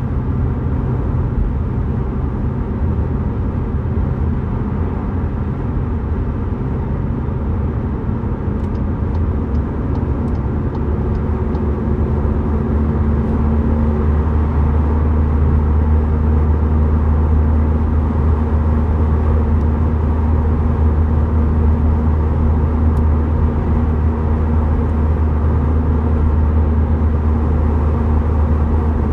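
Tuned Seat Leon FR cruising at motorway speed, heard inside the cabin: a steady low engine drone over tyre and road noise. The drone grows louder about twelve seconds in.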